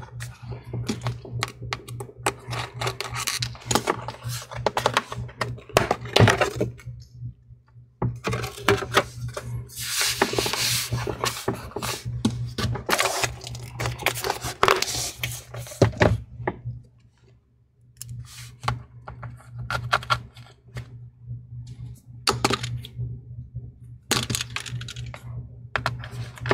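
Pentalobe P5 screwdriver driving the small screws back into a MacBook Air's aluminium bottom cover: dense runs of small clicks and scrapes of the tool tip and threads, broken by two short pauses, over a steady low hum.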